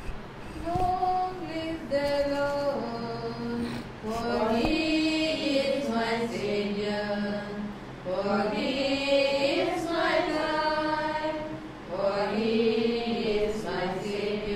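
Devotional hymn sung slowly in long held notes, phrase after phrase with short breaks between.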